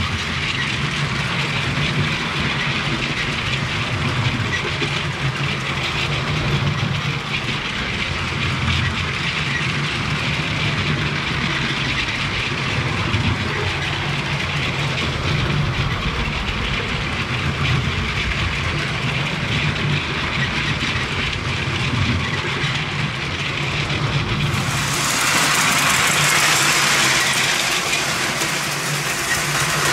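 Battery-powered 1975 LEGO 182 train running on its plastic track, heard from a camera riding on the train: a steady motor hum with the rattle of wheels on the rails. About 25 seconds in, the sound turns brighter and hissier as the view changes to a trackside one.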